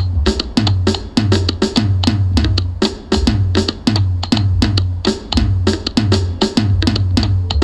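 Background music with a steady drum beat and a pulsing bass line.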